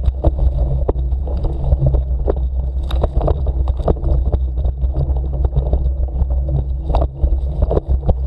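Ride along a bumpy forest dirt trail at about 10 km/h: a steady low rumble of vibration and buffeting on the camera, broken by many small clicks and knocks from the wheels going over the rough ground. Leaves and twigs brush the camera near the start.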